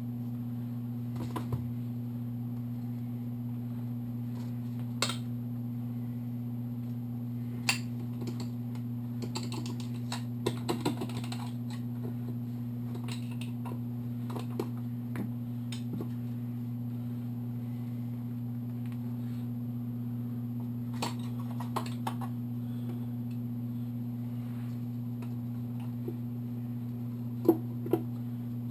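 Scattered light metallic clicks and clinks of hand tools and small engine parts being handled during a motorcycle engine teardown, with a small cluster about a third of the way in and a couple of louder knocks near the end, over a steady low hum.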